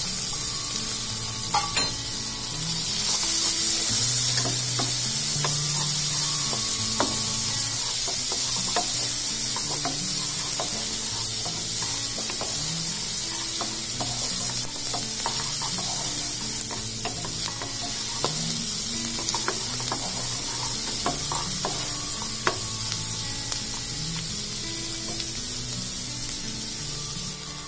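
Chopped onions sizzling in hot butter with garlic and ginger in a metal kadai, frying for a tadka, while a spatula stirs and scrapes them against the pan with scattered clicks. The sizzle grows louder about three seconds in.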